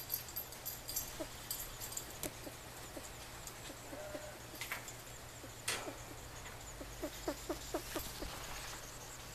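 A male mink hooded fancy rat wheezing: short squeaky chirps in its breathing, scattered and then a quick run of them near the end, with faint clicks. This is the sign of an upper respiratory infection, which the owner puts down to mycoplasma.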